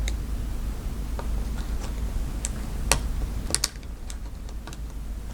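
Small, irregular plastic clicks and snaps as a lubed Costar stabilizer and its wire are fitted back into a mechanical keyboard and the keycap is pressed on, the loudest a little before and after the 3-second mark.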